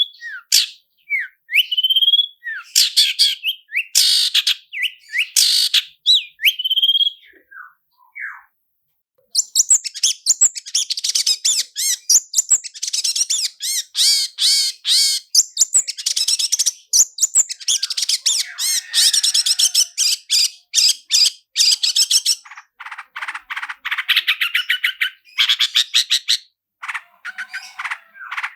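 Long-tailed shrike (cendet) singing: a few separate high whistled and rising notes, then, after a short pause about nine seconds in, long fast rolling trains of rasping notes many per second, with brief breaks. This is the rapid 'roll speed' song, mixed with mimicked calls of other birds.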